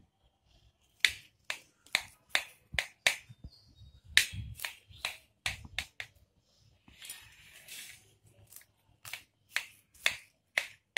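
Knife clicking against a plate again and again while cutting a steamed semolina dhokla into pieces: a run of sharp, irregular clicks, with a short soft rustle about seven seconds in.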